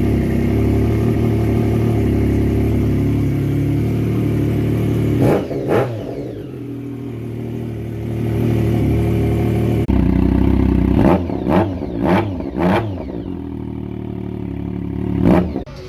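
Triumph 675 inline-three motorcycle engine idling through an aftermarket exhaust, blipped sharply several times: two quick revs about five seconds in, four in a row a few seconds later, and one more near the end.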